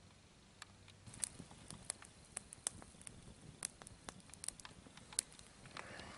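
Wood fire crackling: irregular sharp pops and snaps starting about a second in, with a brief soft rustle near the end.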